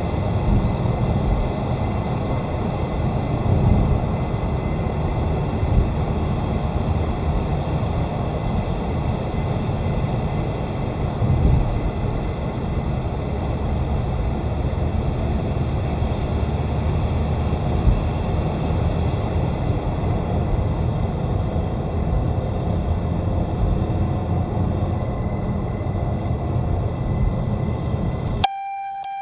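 Car road and engine noise heard inside the cabin, with a faint high whistle of unchanging pitch that grows a little stronger near the end. The owner hears this whistle when lifting off the throttle under engine braking and suspects the alternator belt or idler pulley, the alternator, the AC compressor, the oil pump's second stage or the turbo. Near the very end the road noise cuts off and a steady beep-like tone sounds instead.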